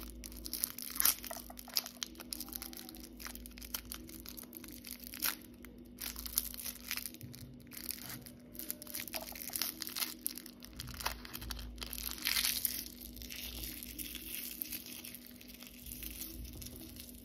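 Plastic lollipop wrapper crinkling and crackling irregularly as fingers twist and peel it off the sweet.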